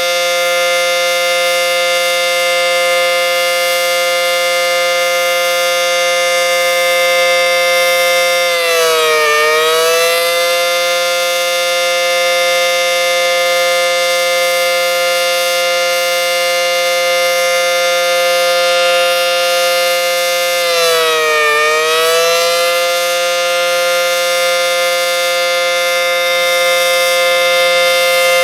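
ACA Banshee 115 outdoor warning siren sounding a loud, steady tone. Its pitch dips briefly and comes back up twice, about twelve seconds apart.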